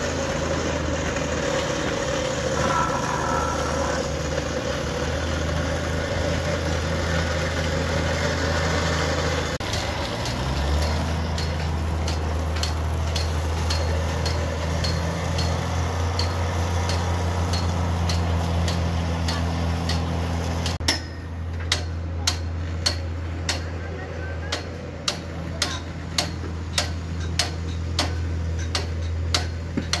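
An engine running steadily, its pitch shifting slightly about a third of the way in. About two-thirds through the sound cuts to sharp taps roughly twice a second, fitting bricks being tapped into place during bricklaying, over a fainter drone.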